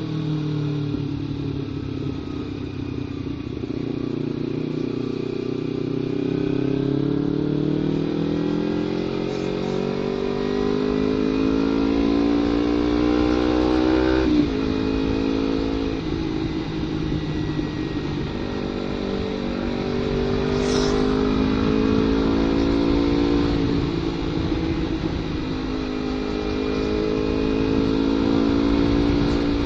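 Kawasaki Ninja 250 FI parallel-twin engine running through an aftermarket header and Prospeed Black Series silencer. The engine note climbs slowly under throttle, drops sharply at a gear change about halfway through, then rises and eases off again with the throttle.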